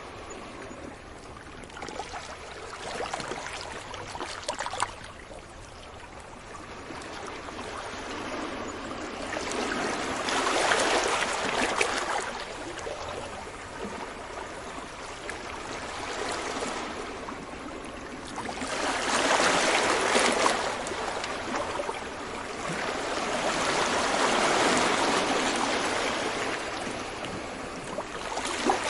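Ocean waves breaking and washing up a beach, each surge swelling and ebbing every few seconds.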